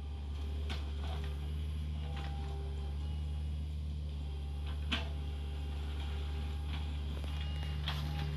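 Hitachi mini excavator's diesel engine running steadily with a low drone while it digs, with a few sharp clanks and knocks from the working arm and bucket, the sharpest about five seconds in.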